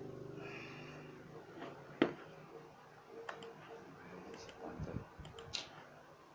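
A few scattered small clicks and knocks over a faint steady hum, the loudest knock about two seconds in.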